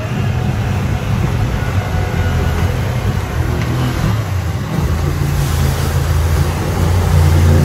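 An old Jeep pickup's engine running hard as the truck ploughs through deep mud and water, with mud and water splashing around it. The engine grows louder about five seconds in.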